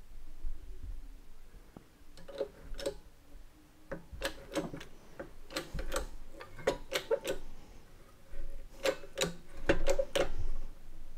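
Irregular sharp metallic clicks and ticks, some in quick clusters, from a homemade bottle-jack press as a sheet of steel is pressed into a bend.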